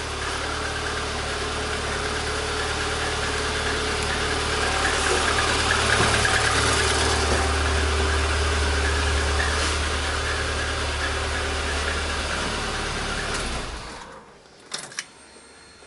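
VAZ-21099 engine idling steadily, with no squeal from the alternator belt now that the alternator is tightly bolted down. It gets a little louder in the middle and then is shut off about 14 seconds in, followed by a few light clicks.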